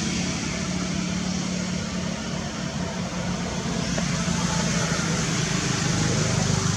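A steady, unbroken engine-like hum with a constant low drone under a wash of noise.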